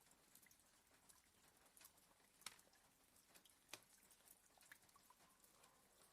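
Near silence with faint, scattered raindrop taps on window glass, two sharper ticks about two and a half and nearly four seconds in.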